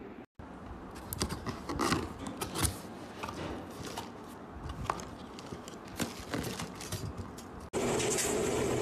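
Cardboard packaging and accessories being handled, with scattered clicks, knocks and rustling. Near the end the sound switches abruptly to a steady, louder whir of a Giselle air fryer running.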